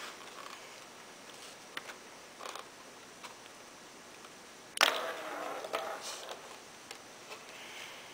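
Quiet handling noises of hands on a foam model airplane and its bamboo pushrod, with a few faint clicks. About five seconds in comes one louder rasping rub that starts suddenly and lasts about a second and a half.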